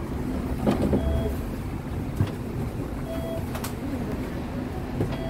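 Hong Kong double-decker tram running along the street, heard from inside the car: a steady low rumble with a few sharp knocks. A short beep repeats about every two seconds.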